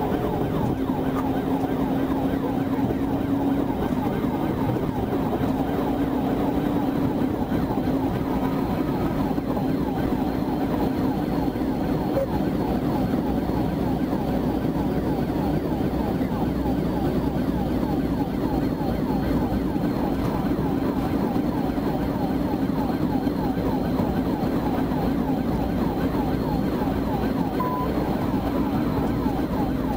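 Police cruiser's siren sounding a fast, repeating rising-and-falling yelp, heard from inside the car over steady engine and road noise.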